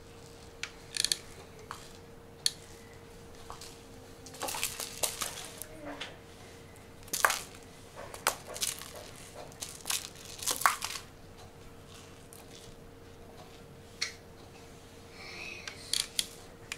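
A kitten playing on a wooden floor: scattered sharp taps and clicks of paws and claws with short scuffling rustles, over a faint steady hum.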